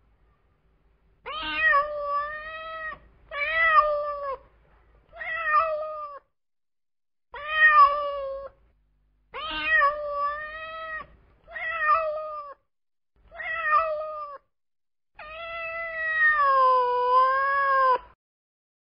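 Domestic cat meowing eight times with short pauses between; the last meow is longer, with a wavering pitch.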